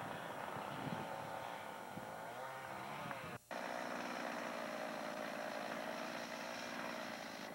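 A small engine drones throughout, its pitch wavering at first. After a brief drop-out in the sound about three and a half seconds in, a chainsaw runs at a steady pitch.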